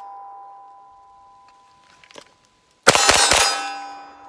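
The ringing of steel targets hit by an AR-style rifle fades away. About three seconds in comes a quick string of about four rifle shots, and the steel rings again.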